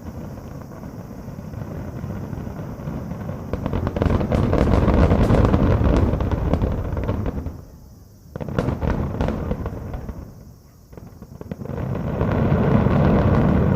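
Fireworks finale barrage: many shells bursting at once in a dense, continuous rolling of booms and crackles. It swells in waves, loudest from about four to seven seconds in, with another burst just past the middle and a last swell near the end.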